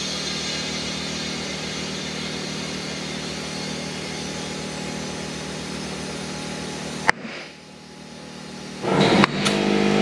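Compressed air hissing steadily through an air chuck into a new Evinco kart tire to seat its bead. About seven seconds in there is one sharp pop as a bead snaps onto the rim, and the hiss drops away. Near the end an air compressor kicks on and runs loudly and steadily.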